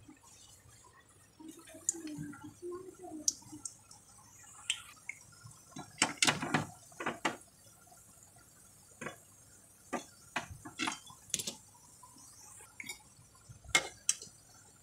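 Biscuit dough frying in refined oil in an aluminium kadai over a medium flame: scattered pops and crackles, a close cluster of them about six seconds in. Near the end a steel spoon clicks against the pan.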